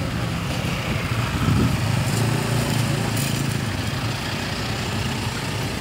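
Small van and motorcycles driving slowly past close by, their engines running at low speed over steady road-traffic noise.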